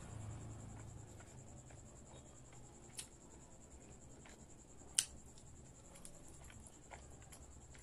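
Faint close-up eating sounds: quiet chewing and mouth noises while eating by hand, with a few sharp clicks, two louder ones about three and five seconds in.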